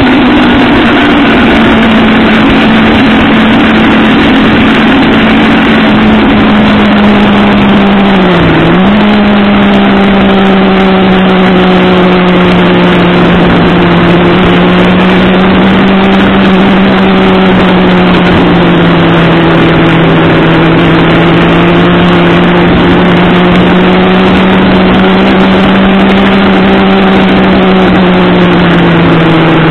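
Motorcycle engine running steadily at cruising speed under heavy wind noise, its note dipping briefly and recovering about a third of the way in.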